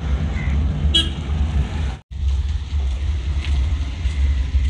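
Heavy wind rumble on the microphone while riding along a road, with road noise. A short sharp sound comes about a second in, and the sound drops out abruptly for a moment about two seconds in.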